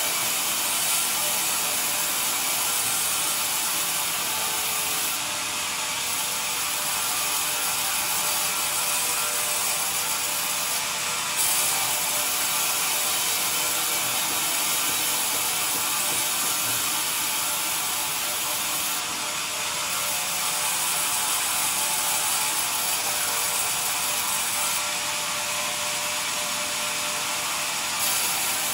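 Band sawmill ripping a squared pine beam lengthwise, its band blade cutting steadily through the wood as the carriage feeds the beam: a continuous, even sawing hiss.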